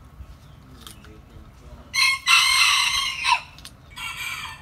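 A rooster crowing: a short note, then a long held call that drops at its end, followed by a shorter call near the end.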